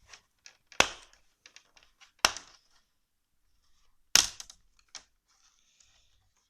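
Plastic screen bezel of an HP Pavilion 15 laptop being pried off by hand: three loud, sharp snaps as its clips pop loose, with smaller clicks between.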